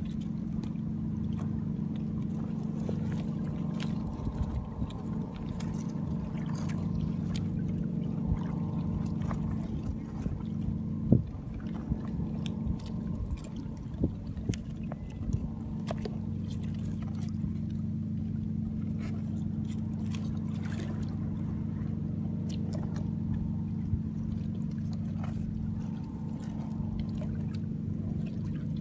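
A steady low engine drone, with scattered small clicks and one sharper click about 11 seconds in.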